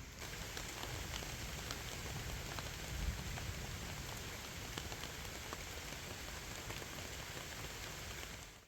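Steady rain from a thunderstorm, with many individual drops ticking close by.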